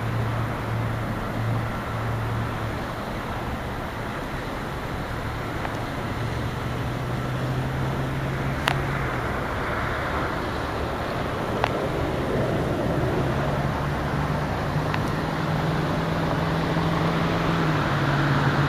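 Car engine hum and road noise heard from inside a moving car, the engine's pitch shifting a little with speed, with two sharp clicks in the middle.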